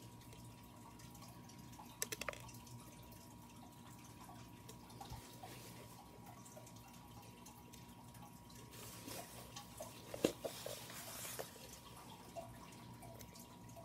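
Small plastic clicks and taps of perler beads being set onto a clear plastic pegboard by hand: a quick cluster about two seconds in and a louder group around ten seconds in, over a faint steady thin hum.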